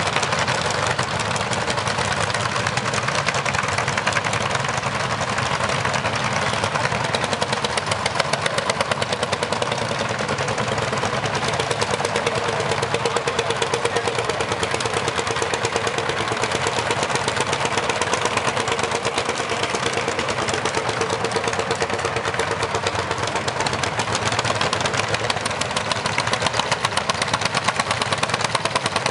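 Vintage single-cylinder two-stroke hot-bulb tractor engines running steadily under load with a rapid, even beat, pulling heavy road graders through mud.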